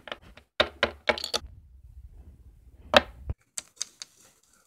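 Hard plastic Littlest Pet Shop figurines knocked and tapped on a wooden surface as they are moved by hand: scattered sharp clicks, with one louder knock about three seconds in, over a low handling rumble that cuts off suddenly.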